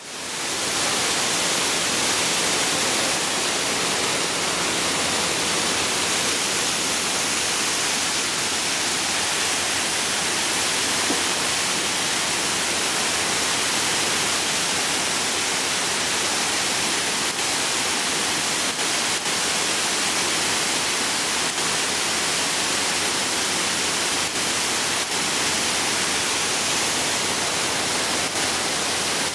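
Wastewater spilling over the rim of a circular clarifier tank and splashing into the concrete basin below: a steady rush of falling water.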